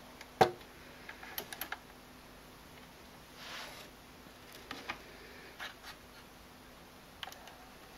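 Technics SL-J11 linear-tracking turntable before the music starts: a sharp click just under half a second in, then scattered soft ticks and a brief swish near the middle, over a faint steady hum.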